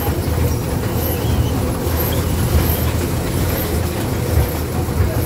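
Small amusement-park ride train running with a steady low rumble, heard from aboard an open carriage.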